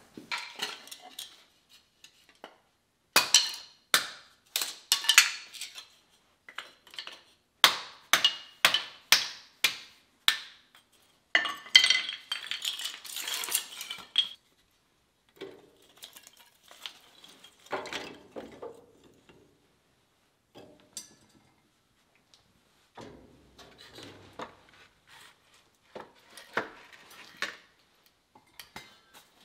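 Dry split kindling sticks clacking and clattering against each other as they are gathered up and laid into a wood stove's firebox, in several quick bursts with pauses between.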